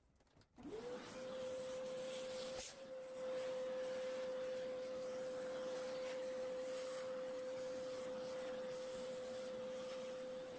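Small handheld vacuum cleaner switched on, its motor spinning up in about half a second to a steady whine over the hiss of rushing air as it sucks up sawdust. A brief tap of the nozzle about two and a half seconds in.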